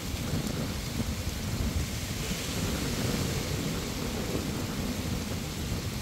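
Strong wind buffeting the microphone in a constant, fluttering low rumble, over the steady hiss of surf washing onto a sandy beach.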